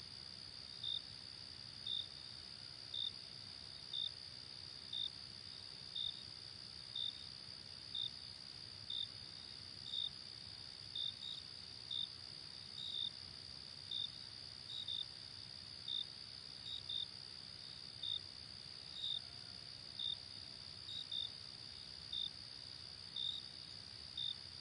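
Night insects: a steady high-pitched drone, with a cricket chirping about once a second.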